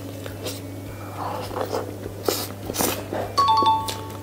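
Close-miked eating of soft cream cake from a fork: wet mouth smacks and chewing clicks. Near the end comes a brief high two-note squeak.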